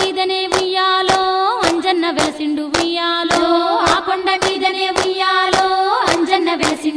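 A Telugu Bathukamma folk song: a woman's voice holds long notes with slides in pitch over steady hand claps, about two claps a second.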